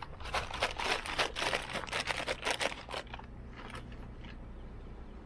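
Crinkling rustle, a quick run of a dozen or so scrunches over about three seconds, then two softer ones near the four-second mark.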